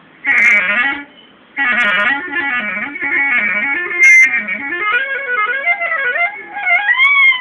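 Solo clarinet playing a slow, improvised alaap. A short phrase is followed by a brief pause, then one long, winding line full of pitch glides and ornaments that climbs higher toward the end.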